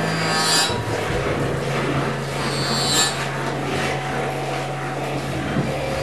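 Free-improvised experimental music: a dense scraping, rasping texture with a held low note underneath, which steps down in pitch just under a second in. Two brighter swishes stand out, about half a second in and again about three seconds in.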